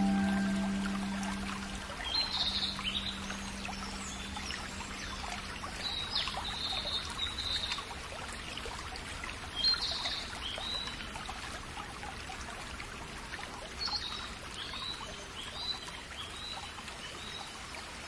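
A last held music note dies away over the first few seconds, leaving small birds chirping in short, scattered calls over a steady trickle of running water.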